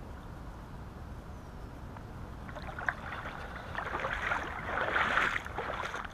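Low, steady rumble of wind and water at the camera. About three seconds in comes a click, then scuffing and rubbing as the GoPro action camera is picked up and handled, loudest about five seconds in.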